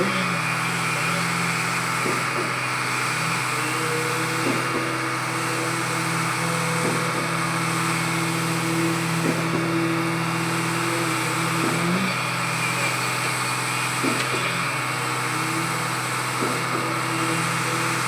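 Concrete pump running steadily under load, with a short knock about every two and a half seconds as its pistons change stroke.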